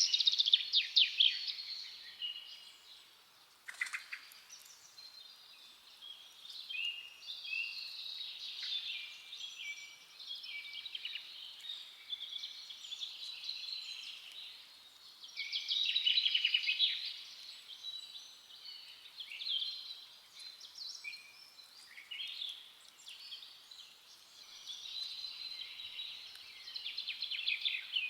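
Several forest songbirds singing and chirping, their short whistled phrases and fast trills overlapping, with louder bouts at the start, midway and near the end. A single sharp click sounds about four seconds in.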